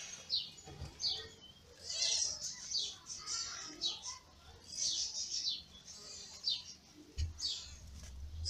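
Newborn kittens mewing in short, high-pitched squeaks that fall in pitch, repeated over and over. A low rumble of the camera being handled comes in near the end.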